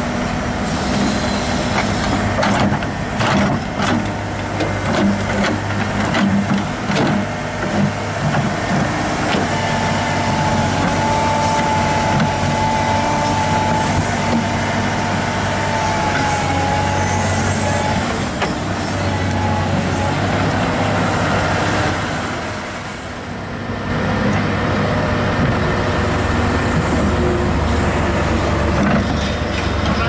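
Komatsu PC200-8 excavator's diesel engine running under load as the machine works its bucket and track, with a run of metal knocks and clanks in the first several seconds and a steady high whine for several seconds in the middle.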